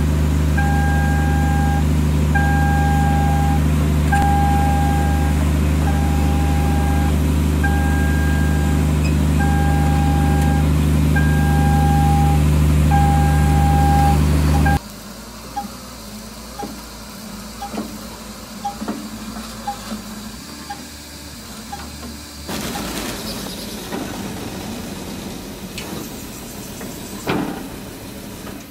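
Clark MH0003 long-hole drill rig machinery running with a loud steady hum, under a warning beeper that sounds roughly every second and three-quarters. About halfway through, both cut off abruptly. The machinery then runs much quieter with scattered clicks and knocks, and picks up a little in level near the end.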